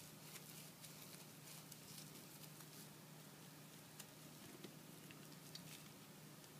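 Near silence with faint scattered clicks and rustles of a PS3 controller's battery pack and plastic parts being handled, over a low steady hum.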